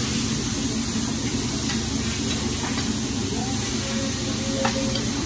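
Chicken and steak sizzling steadily on a hibachi flat-top griddle, with a few light clicks of the chef's metal spatula against the steel, over a steady low hum.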